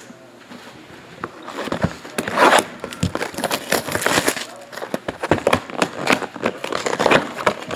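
Plastic shrink wrap crackling and crinkling as it is handled and torn off a sealed trading-card box, in irregular bursts that start about a second and a half in.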